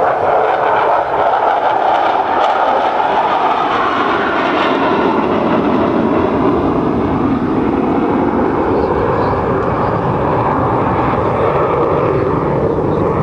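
Aermacchi AMX's single Rolls-Royce Spey turbofan in flight: a loud, steady rush of jet noise whose pitch sinks in the middle and climbs again near the end.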